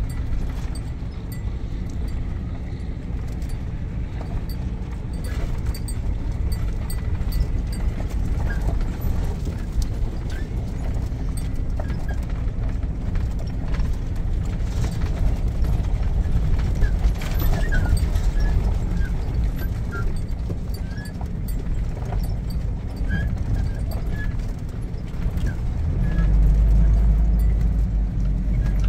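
RV driving slowly over a rough dirt road: a steady low engine and road rumble with many small rattles and knocks from the rig. The rumble grows louder near the end.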